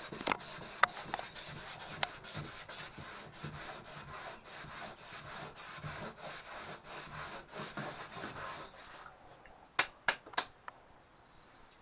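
Hand sanding of a varnished wooden panel with a sanding block: sandpaper rubbing over the wood in quick back-and-forth strokes, scuffing back the varnish between coats. The sanding stops about nine seconds in, and a few sharp knocks follow.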